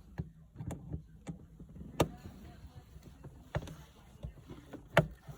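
Scattered sharp clicks and knocks of metal parts being worked loose by hand, as a shift cable end is twisted off the shifter linkage; the loudest come about two seconds in and near the end.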